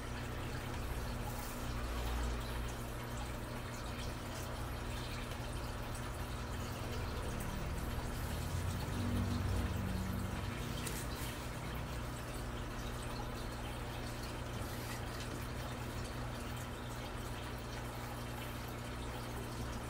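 Steady low hum with a constant hiss, with no clear guitar notes; a faint low rumble swells briefly about halfway through.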